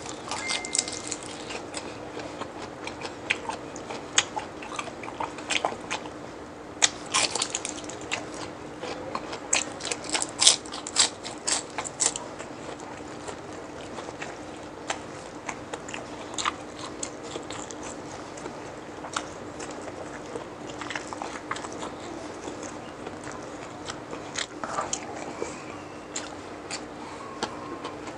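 Crisp crunching bites and chewing of deep-fried chicharon bulaklak (pork mesentery) close to the microphone, densest for about the first twelve seconds, then sparser. A steady low hum runs underneath.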